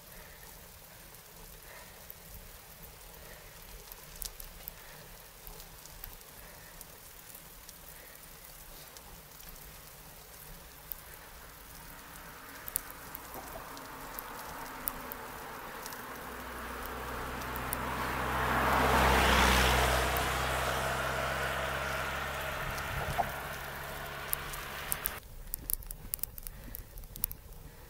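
A motor vehicle passes close by on the road: its tyre and engine sound builds over several seconds, peaks about two-thirds of the way through, then fades, with the sound changing abruptly near the end. Small ticks run throughout.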